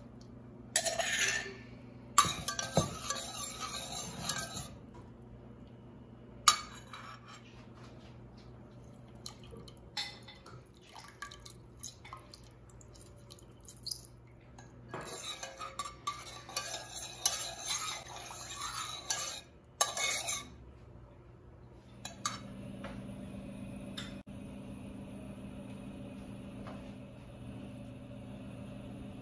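Metal spoon clinking and scraping against a stainless steel saucepan while stirring a chili-garlic mixture into syrup, in clusters separated by pauses. A steady low hum sets in about three-quarters of the way through.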